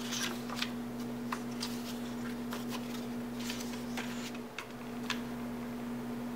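Cardstock paper petals being handled and laid out on a table: scattered light taps and paper rustles, over a steady low hum.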